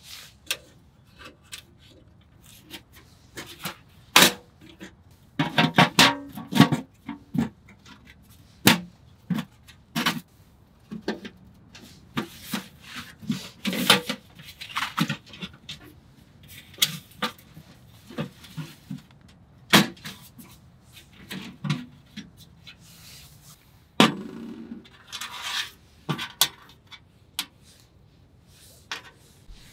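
Objects being handled at close range: irregular knocks, clicks and clinks with short bursts of rustling.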